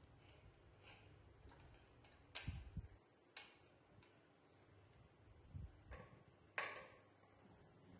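Near silence broken by about five light clicks and taps as grilled sweet potatoes are handled and set down on plates on a tiled floor, the loudest two about two and a half seconds in and near the end.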